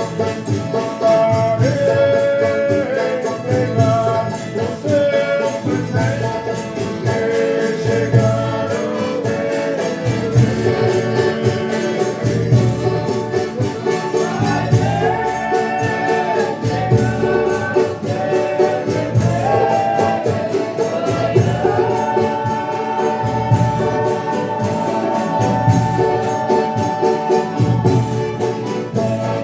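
Folia de Reis group singing together in long held, sliding notes, over a regular low beat with tambourine jingles.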